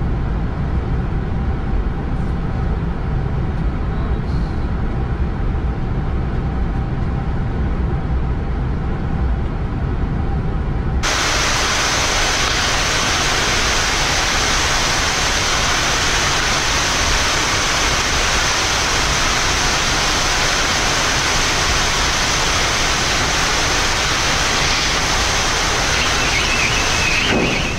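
Steady noise on a Boeing 787 flight deck as the airliner rolls out and taxis after landing. A low rumble gives way abruptly, about 11 seconds in, to a brighter, even hiss.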